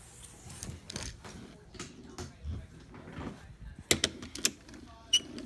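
Toy engines and the camera being handled: several sharp clicks and knocks among soft rustling, the loudest knocks about four seconds in.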